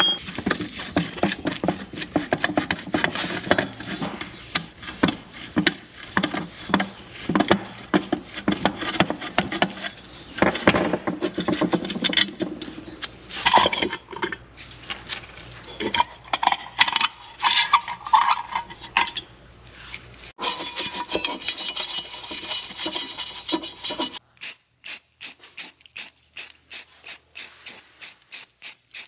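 Irregular rubbing and scrubbing strokes of gauge parts being cleaned by hand. About 24 seconds in the sound changes abruptly to a faint, regular ticking, about four ticks a second.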